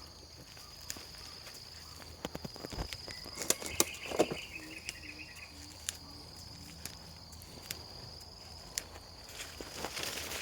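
Steady, high-pitched insect drone with scattered light clicks and snaps. About four seconds in comes a brief chirping trill, then a few soft, low evenly spaced notes.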